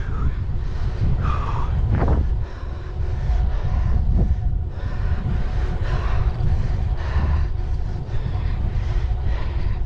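Wind buffeting the microphone with tyre and road noise from an e-bike riding at speed, a loud low rumble that gusts unevenly, with a faint steady whine underneath.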